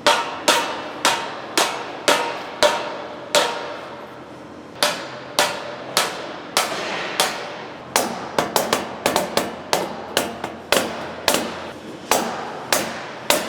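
A hammer striking a steel fire-pit body about twice a second, each blow ringing briefly, with a quicker run of taps about two-thirds of the way through, as the bottom plate is knocked into place.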